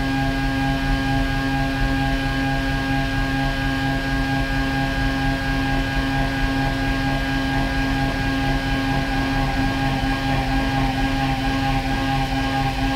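DN Solutions DVF 5000 five-axis CNC mill dry-cutting 1018 steel with a 3/4-inch six-flute end mill spinning at 12,000 rpm. A steady machining whine with several held tones over a gritty cutting noise, unchanging throughout.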